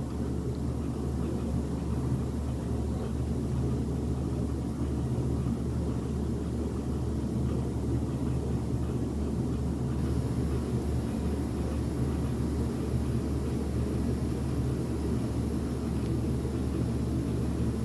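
Steady low rumble of a running engine, unchanging throughout, with no horn sounding.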